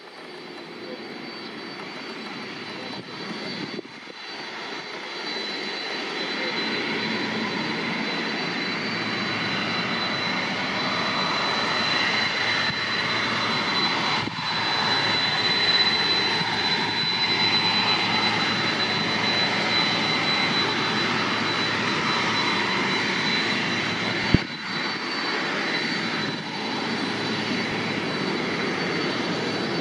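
Boeing 767-300ER jet engines running as the airliner taxis close by, growing louder over the first several seconds and then holding steady, with a steady high-pitched whine above the rush. A single sharp click cuts through about 24 seconds in.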